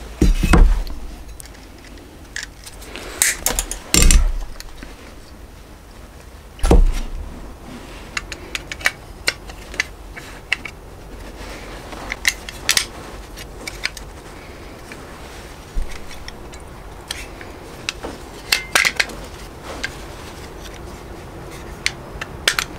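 Metal clicks, clinks and knocks as a mortise lock case is handled and its cover plate fitted and pressed on over the lock's return spring. There are a few louder knocks about half a second, three, four and seven seconds in, with lighter clicks in between.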